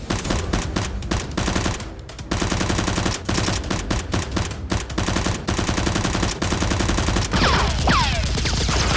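Rapid, overlapping automatic gunfire, added as game-style sound effects. Falling whistling sweeps join the shooting about seven seconds in.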